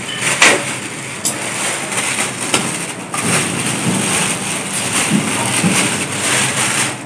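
Plastic wrapping crinkling and rustling as it is pulled off a small speaker by hand, with a few sharp crackles.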